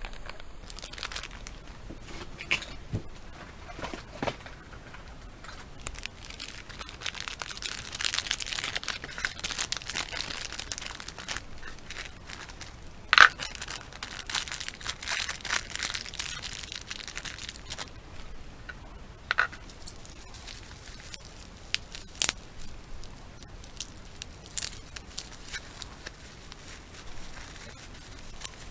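Clear plastic bag crinkling and crackling as it is handled and torn open, with many sharp crackles and one loud crack about halfway through.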